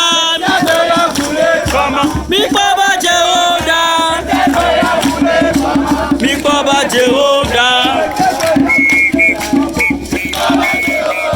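A group of scouts singing a chant together, with rattles shaken in a fast steady rhythm. Short high steady tones repeat over the singing near the end.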